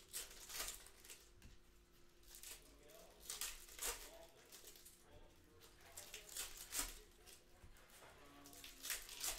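Foil trading-card pack wrapper crinkling and tearing as it is pulled open by hand, in several short bursts.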